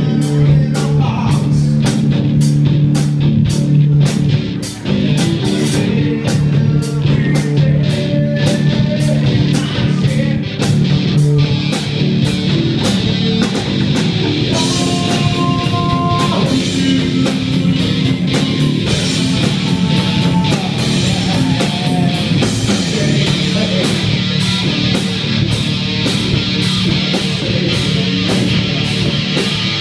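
Live rock band playing loud: electric guitar through an amp over a drum kit keeping a steady, fast beat, with a few held higher guitar notes around the middle.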